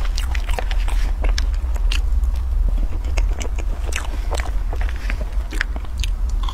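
Close-miked eating of a soft cream cake: wet chewing and biting, with many small sharp clicks and scrapes of a metal fork against a paper box, over a steady low hum.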